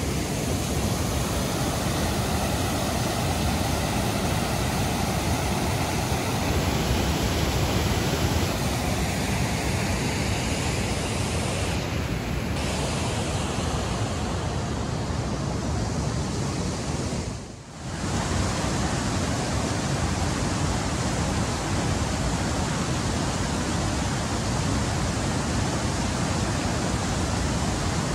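River rapids rushing: a loud, steady noise of white water that drops away briefly about 17 seconds in, then carries on.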